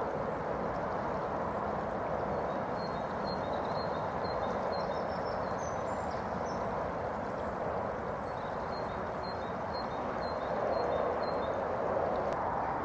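Steady rush of a shallow river running over stones. Faint, high, short bird chirps come in two quick runs, one a few seconds in and one past the middle.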